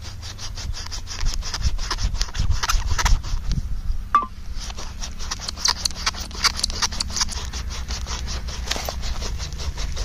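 Wooden hand-drill spindle spun back and forth in a hearth hole for friction fire-lighting: a fast, continuous run of rubbing, scraping strokes, broken briefly about four seconds in. The friction is bringing the hole to a smoking ember.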